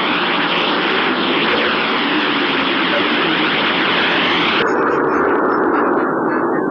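Planetary sonification of spacecraft data: a loud hiss laced with many overlapping rising and falling whistling sweeps. About four and a half seconds in, the higher part drops away, leaving a lower rushing noise.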